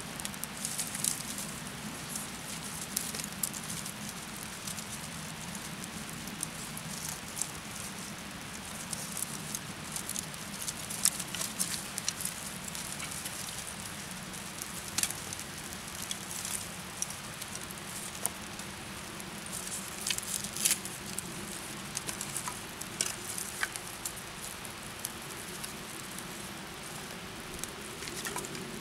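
Kindling fire of thin dry twigs crackling, with sharp irregular pops and snaps over a steady hiss; the loudest snaps come about eleven and twenty-one seconds in.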